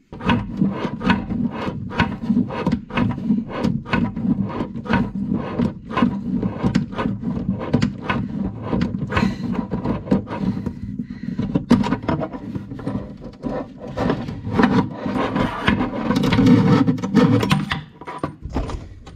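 Mono basin tap being tightened onto the worktop from below: rubbing and scraping with quick clicks, about two or three a second, as its small back nut is turned up, with a louder stretch of scraping near the end.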